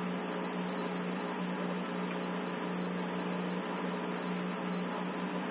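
Steady hiss with a constant low electrical hum: the self-noise of a security camera's built-in microphone. No distinct event stands out.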